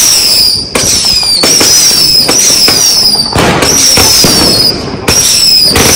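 Fireworks going off: a string of short whistles, each falling slightly in pitch, about one every 0.7 seconds, with sharp bangs between them.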